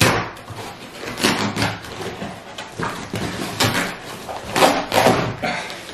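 A heavily taped cardboard box being torn open by hand: a series of ripping tears of cardboard and packing tape, about five separate rips over the few seconds.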